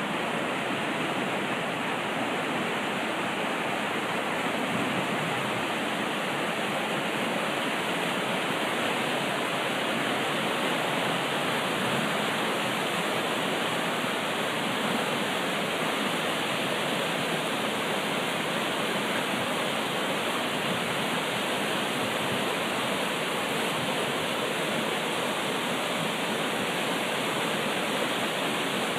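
Swollen creek running high, near flood stage: a steady, unbroken rush of fast water.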